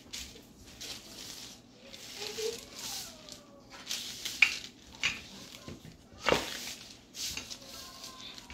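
A wooden rolling pin rolling dough between sheets of paper: the paper rustles and crinkles in repeated strokes about a second apart, with a few sharper knocks and taps.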